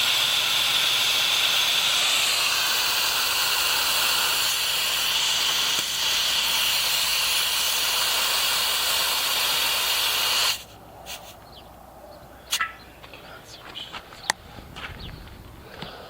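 Water rushing out of an open valve to drain the well system's pressure tank: a steady hiss that stops abruptly about ten seconds in. After that come a few faint clicks and knocks.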